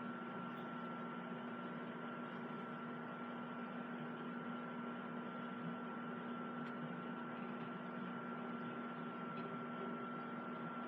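Microwave oven running, heating the mug cake: a steady hum with a constant higher whine over it.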